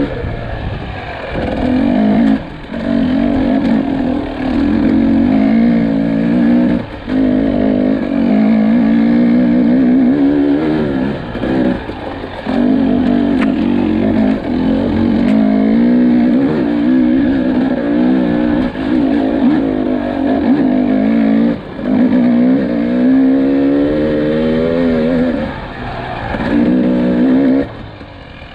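2022 Husqvarna TE300i's fuel-injected two-stroke single-cylinder engine being ridden hard, its pitch rising and falling with the throttle. It drops off briefly a few times as the throttle closes, then picks up again.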